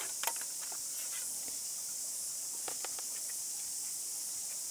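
Steady high-pitched hiss of forest background, with a few faint light clicks as the thin spring-steel panels of a Triangle Trangia pot stand are clipped together.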